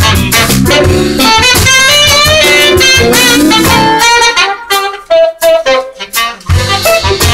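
Live jazz band: a saxophone plays a melodic line over guitar, bass and drum kit. About two-thirds of the way through, the bass and drums drop out briefly, leaving the horn and a few sharp band hits. The full band comes back in near the end.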